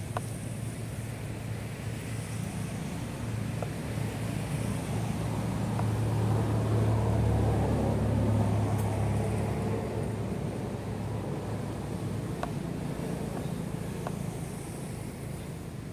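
Low engine rumble of a passing motor vehicle, swelling to a peak about halfway through and then fading, with a few faint clicks.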